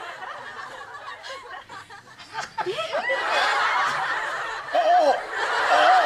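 A group of women laughing and giggling, quieter at first, then swelling into loud laughter about three seconds in.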